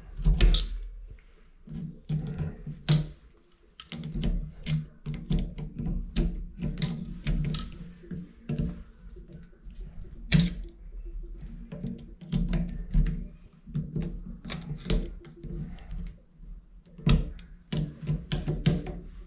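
Irregular knocks, clicks and thunks of metal tools and parts being handled against a shower valve during cartridge removal, a few sharper knocks standing out among them.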